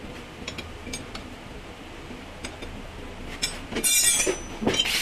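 Metal hand tools clinking and tapping against each other and the steel door frame as they are handled, a few scattered clinks. About four seconds in comes a short, louder rushing noise.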